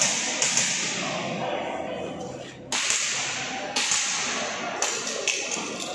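Airsoft pistol firing a string of sharp shots, about eight in irregular groups, each crack echoing off the concrete of a large hall.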